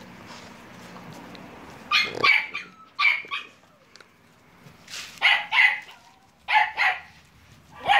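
Staffordshire-type terrier puppies barking in short high yaps, mostly in quick pairs, starting about two seconds in and repeating every second or so.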